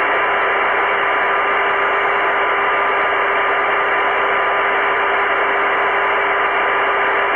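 Aircraft VHF comm radio carrying a stuck microphone: an open, unmodulated transmission heard as a loud steady radio hiss with a few faint steady tones in it, blocking the frequency.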